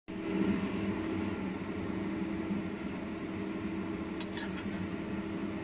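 Steady low machine hum, with a brief faint rattle about four seconds in.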